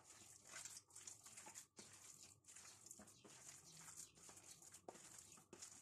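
Faint, irregular wet squishing and tapping of bare hands kneading raw chicken mince with egg and spices in a plastic tub.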